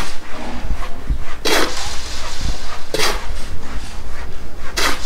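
Steel shovel scraping and scooping through a dry cement-and-sand mix in a mixing box: a short scrape about every second and a half as the worker turns the pile to blend it before water is added.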